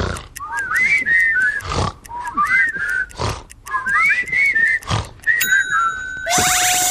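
Comic cartoon snoring from a group of puppet monsters: a rasping inhale, then a fluttering run of whistling chirps on the breath out, repeating about every second and a half. Near the end a steady high whistle tone starts, then a loud rushing burst with rising tones cuts in as they startle awake.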